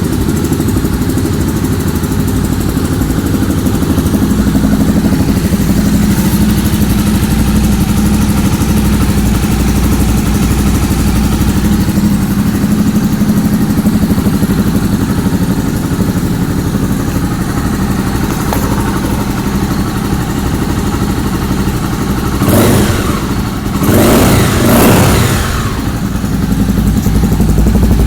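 Honda XRE 300's single-cylinder four-stroke engine idling steadily through a Coyote SS1 aftermarket exhaust, then revved in about three quick blips near the end before settling back to idle.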